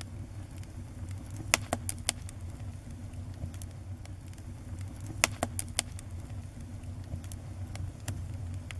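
Wood fire burning: a low steady rumble of flames with sharp crackling pops, which come in two small clusters about a second and a half and about five seconds in.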